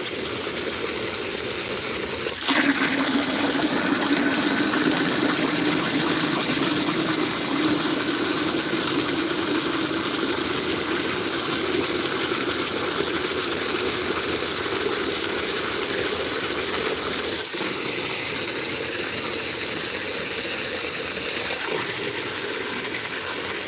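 Garden-hose spray nozzle jetting water hard into a plastic bucket, used as a high-pressure mixer to stir up sugar syrup for the bees: a steady rushing splash. Its tone shifts about two and a half seconds in and again a little past halfway, and the water shuts off suddenly at the very end.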